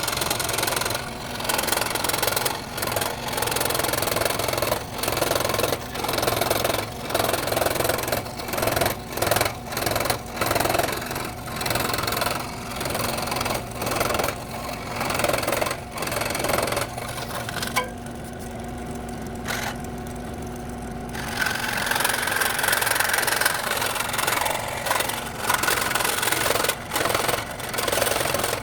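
Scroll saw cutting wood, its blade running fast up and down with frequent short pauses as the piece is fed and turned. About two-thirds through, the cutting noise drops away for a few seconds and only the saw's steady running hum is left.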